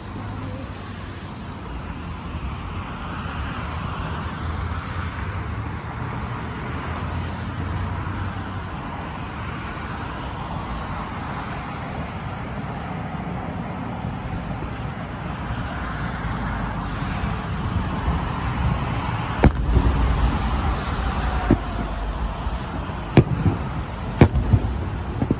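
Aerial fireworks shells bursting over a harbour: a steady low rumble for most of the time, then a string of sharp bangs in the last several seconds, several in quick succession near the end.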